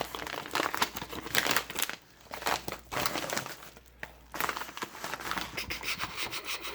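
Packaging crinkling and rustling in irregular handfuls as it is handled and opened, with a couple of brief pauses.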